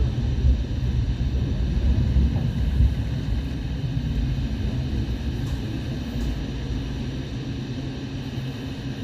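Hong Kong Light Rail Phase I car running, heard from inside the cabin: a steady heavy rumble of wheels and running gear with a faint hum, easing and growing quieter after about three seconds as the car slows.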